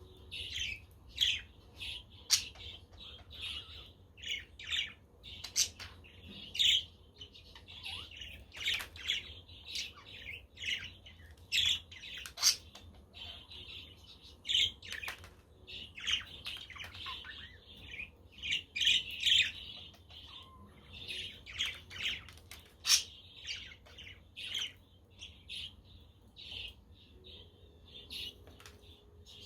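Budgerigars chattering: a continuous run of many short, overlapping chirps and squawks, with a few louder sharp calls standing out.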